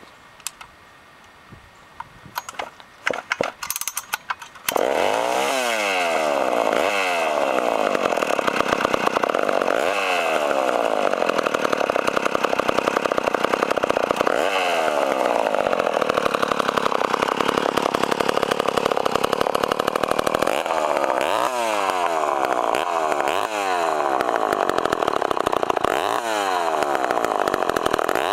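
Poulan 306A two-stroke chainsaw engine coming in about five seconds in after a few light clicks, then running and being revved up and back down again and again. Its low-speed carburettor screw has been leaned an eighth of a turn, and it picks up crisply and responsively on the throttle.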